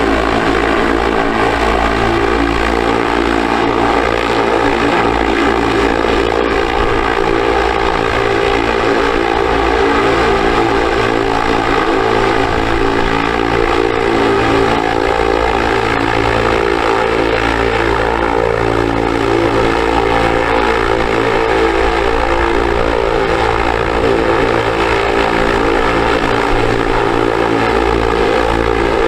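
Steady whirring of spinning propellers, like a multirotor drone's, held at an even pitch with no change.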